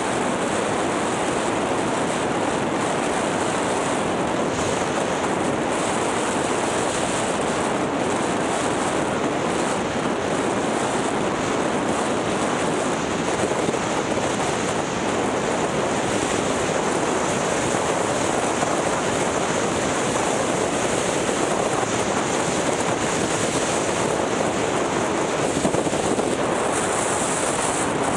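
Steady rush of wind on the microphone of a helmet-mounted camera while skiing downhill at speed, mixed with the hiss of skis sliding over the packed piste.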